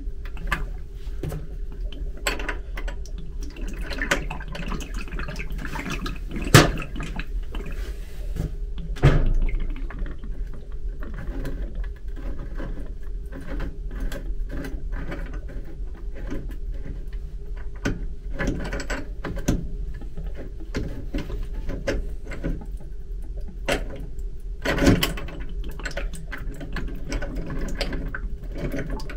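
Hand repair work on metal fittings: scattered clicks, taps and clanks, with sharper knocks about six and a half, nine and twenty-five seconds in, over a steady low hum.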